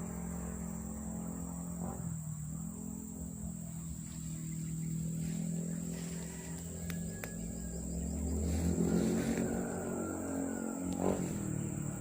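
A motor running steadily at a low, even pitch, growing louder for a moment about two thirds of the way through, over a constant high-pitched insect drone.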